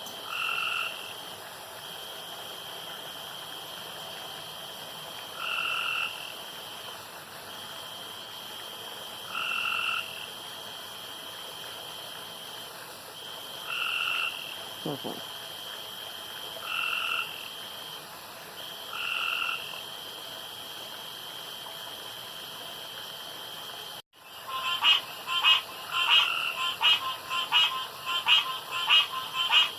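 Male frogs croaking around a backyard pond at night, with short croaks every few seconds over a steady high trill. About 24 seconds in, the sound breaks off briefly, then a rapid run of loud croaks follows, about two a second.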